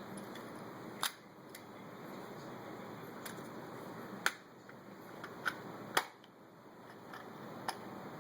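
Scattered sharp clicks and taps of laptop parts being handled, about six in all and the loudest two in the middle, over a steady hiss.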